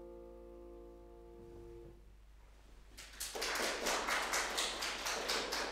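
The final chord of a grand piano rings on and fades away over about two seconds. About three seconds in, audience applause starts and continues, louder than the chord.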